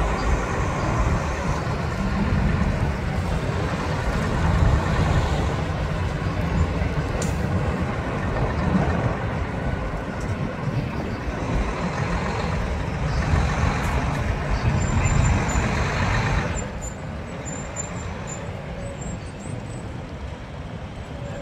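Convoy of heavy multi-axle military cargo trucks driving past, their diesel engines giving a steady low rumble with tyre noise. The loud rumble drops off abruptly about sixteen seconds in.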